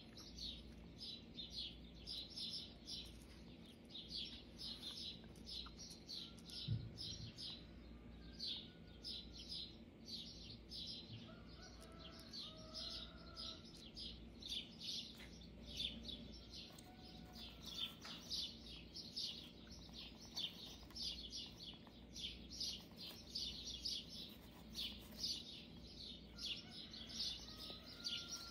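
Small birds chirping in a steady run of short high notes, several a second, with a few lower warbling calls in between. A single soft knock about seven seconds in.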